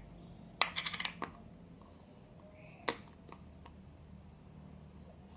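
Small hard clicks and taps from handling slime-making supplies: a quick run of clicks about half a second in, then a single sharp tap near the middle and a few faint ticks.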